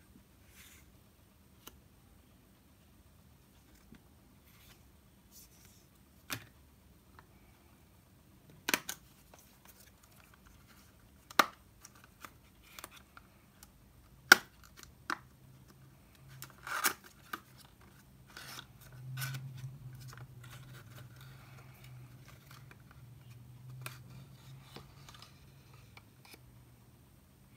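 Gloved hands handling a cardboard serum box and its paper leaflet: scattered sharp clicks and taps, then a longer low rubbing sound through the last third as the dropper bottle is drawn out of the box.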